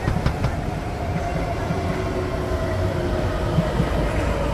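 Electric metro train pulling into an elevated station platform and braking. A few wheel clicks come right at the start, then a steady rumble with a whine that falls slowly in pitch as the train slows.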